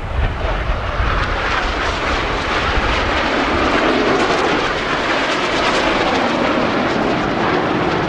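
Airplane engine noise from an aircraft flying past at an air show: a loud, steady rush that deepens in the second half as the plane goes by.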